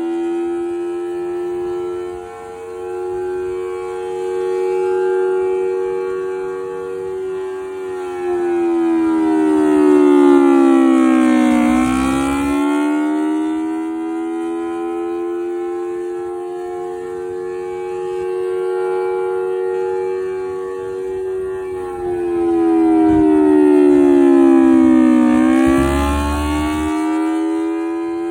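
A 1954 Federal Enterprises Thunderbolt 1000AT civil defense siren sounding the attack signal: a loud, many-toned wail that holds its pitch, then sags and climbs back up, twice.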